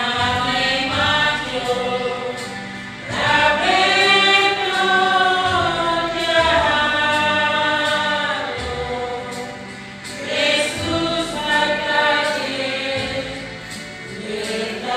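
A women's church choir singing a hymn in the Kayu Batu language, in several voices together, phrase by phrase with short breaks for breath every few seconds.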